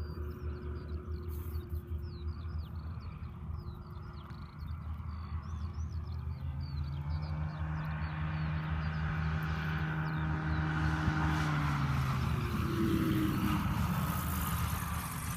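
Light aircraft's propeller engine on its landing approach, growing louder as it comes in and passes, its pitch dropping as it goes by, then fading. Small birds chirp through the first half.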